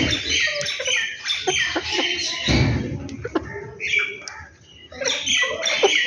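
Many small birds chirping in quick, overlapping calls, with some lower calls among them. A low thud about two and a half seconds in.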